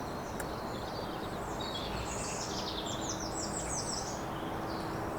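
Steady outdoor background noise with a songbird singing a run of quick, high chirps through the middle, and a faint steady hum under it.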